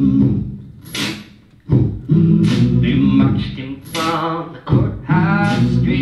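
Vocal beatboxing into a handheld microphone: low held bass notes and sharp hissing hi-hat-like mouth hits in a pattern that repeats about every three seconds, with a sung line gliding in pitch over it near the end.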